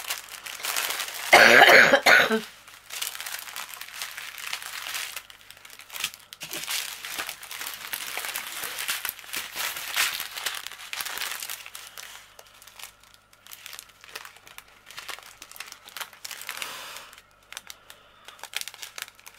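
Small plastic bags of diamond-painting drills crinkling and rustling as they are handled and spread out, with a loud cough about a second in.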